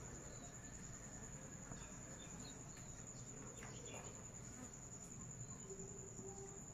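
An insect trilling steadily at a high pitch, faint, over low background noise.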